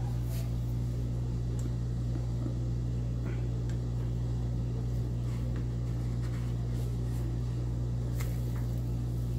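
Steady low hum, with a few faint light taps of a spatula on a nonstick pan as a pancake is turned near the end.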